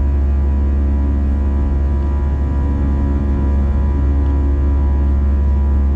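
Airbus A320 cabin noise in climb: a steady, loud jet-engine and airflow drone with a deep rumble and a set of steady humming tones over it.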